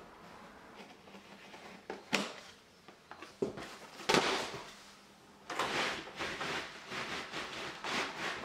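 Felt flooring underlay being cut with a knife and handled: dry scraping and rustling swishes of the sheet. The loudest comes about four seconds in, and a run of them follows near the end.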